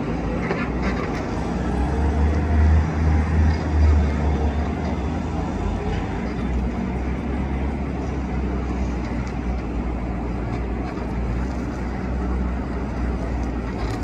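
Skid-steer loader's engine running with a deep steady drone, rising in level for a couple of seconds about two seconds in as it works with a load of sand.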